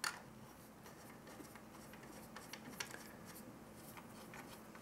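Faint small clicks and scrapes of metal end caps being threaded by hand onto a CPU water block's mounting screws, with one sharper click at the very start.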